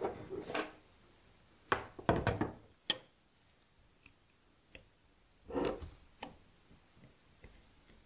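Handling of wooden chopsticks and glass candle jars on a table, as the chopsticks are set across the jars to hold the wicks: scattered knocks and light taps. They come in one cluster around two seconds in and another a few seconds later, with small ticks between.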